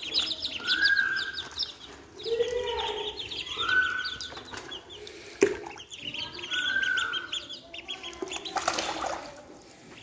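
Baby chicks and ducklings peeping: quick runs of short, high chirps, with a few longer, lower calls in between. A sharp knock sounds about five and a half seconds in, and a brief rush of noise comes near the end.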